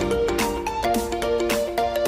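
Background music: an upbeat instrumental with a quick run of pitched, bell-like notes over a steady beat.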